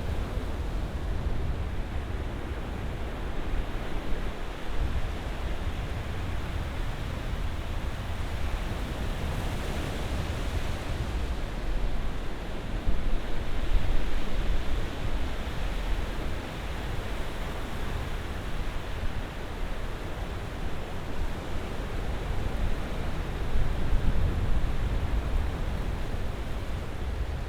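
Ocean surf washing onto the shore in a continuous rushing wash with a deep low rumble, swelling louder about twelve seconds in and again near the end.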